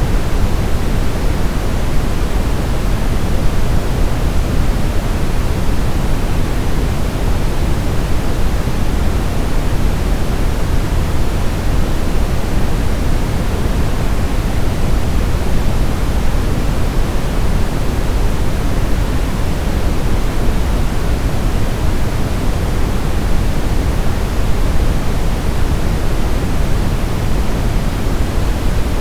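Steady, unchanging generated noise of the kind sold as baby-sleep white noise: an even hiss, fuller and deeper in the low end, that never rises, falls or breaks.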